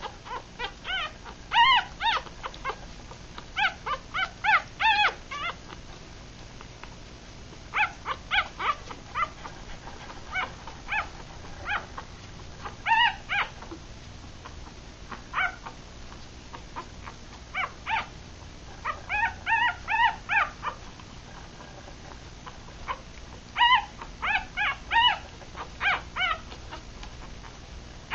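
Three-day-old Rat Terrier–Chihuahua cross puppies squeaking and whimpering while nursing: short high-pitched cries in clusters, with pauses of a few seconds between them.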